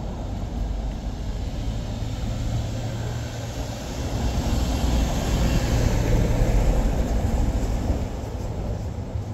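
Light street traffic on a cobblestone street: cars and a van driving by over a steady low rumble. Their tyre noise swells to a louder rush about four seconds in and eases off near the end.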